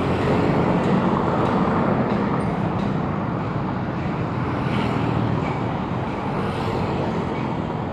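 Steady city road traffic noise heard from a moving bicycle, with the mixed rumble of passing cars and other vehicles, easing off slightly toward the end.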